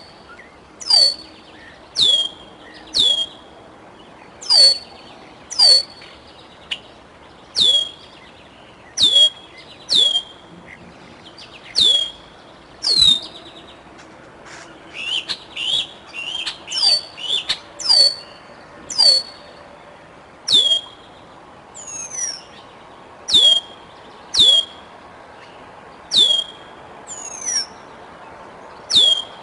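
Juvenile bald eagle giving loud, high, piercing calls, one about every second, each sliding down sharply in pitch: the repeated food-begging call of a young eagle looking to be fed. A few shorter and wavering calls from other birds come in partway through.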